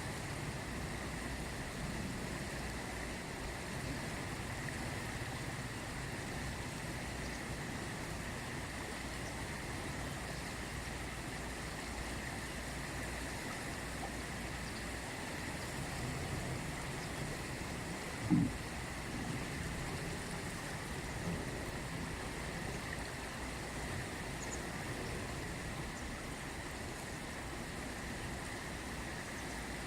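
The Ganges river flowing, a steady even rush of water with a faint steady high whine above it. A brief low thump about two-thirds of the way through.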